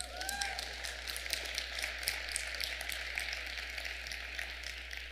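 Audience applauding, a dense patter of many hands clapping that swells just after the start and thins out near the end, with a brief rising-and-falling call from someone in the crowd at the start.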